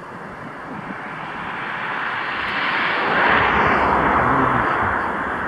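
Container freight train passing at a distance: a steady rushing rumble of wheels on rails that grows louder over the first three seconds and then holds.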